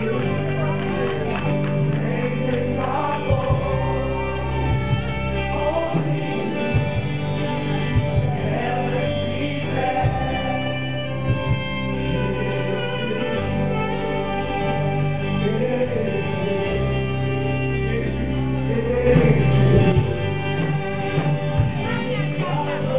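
Gospel praise and worship song: a praise team singing together over sustained instrumental chords, with a steady beat of drum hits.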